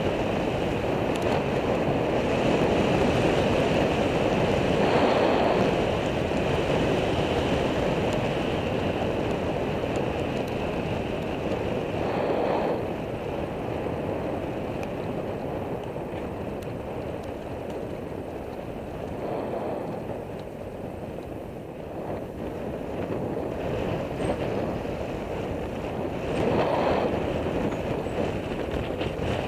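Wind noise on the microphone of a camera riding on a moving bicycle: a steady rush that swells in short gusts about four times.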